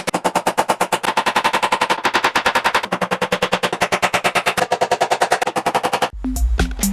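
Electronic background music in a fast, chopped stutter section of about twelve even pulses a second on a held synth chord. About six seconds in it gives way to a heavy bass-drum beat.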